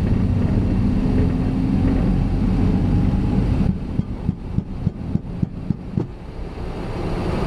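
Cessna Citation Sovereign on its takeoff roll, heard from the cockpit: a steady loud rumble of the jet engines and the wheels on the runway. About halfway the rumble drops and a run of about ten uneven thumps follows over two seconds, then the sound turns smoother and grows again near the end.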